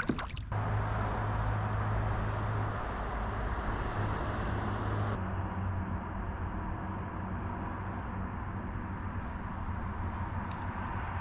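A steady low hum under an even hiss, like a small motor running.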